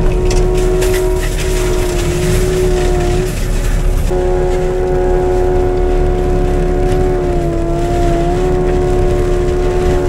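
Skid steer forestry mulcher running under load, heard from inside the cab: a steady engine rumble with a high whine from the mulcher head, plus crackling of brush and wood being ground up over the first few seconds. The whine cuts out about three seconds in, returns a second later, and sags briefly near eight seconds.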